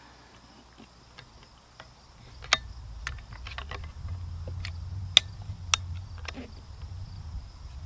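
Browning X-Bolt bolt-action rifle being worked by hand to load the next cartridge: a string of sharp metallic clicks and clacks from the action, beginning about two seconds in, over a low rumble.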